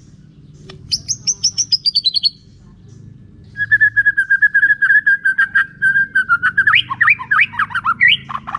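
White-rumped shama singing. It opens with a quick run of about a dozen falling notes, then holds a fast, steady trill of repeated notes, and ends in a string of lower sweeping notes.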